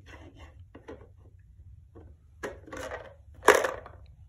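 Plastic shape-sorter blocks and lid clicking and knocking together as they are handled, with a louder clatter about three and a half seconds in, over a low steady hum.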